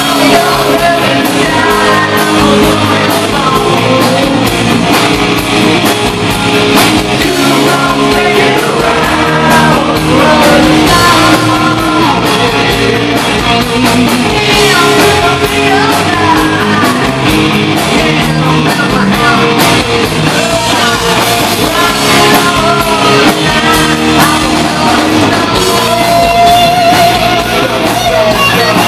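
Live hard rock band playing loudly: a male singer belting over electric guitar, electric bass and a drum kit.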